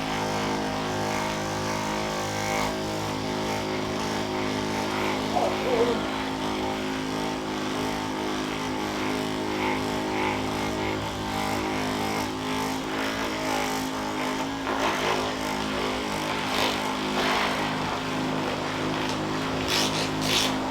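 Electric massager's motor running steadily against the lower back, a constant hum that holds one pitch throughout.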